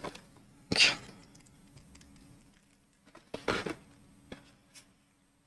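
A cardboard box of plastic marker pens being handled: two brief scraping rustles, about a second in and again around three and a half seconds in, with a few faint clicks.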